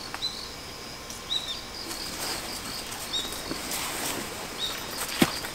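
Short high chirps repeating roughly once a second, from a small bird, over a faint steady insect trill. Light rustling in dry fallen leaves, and a sharp click near the end.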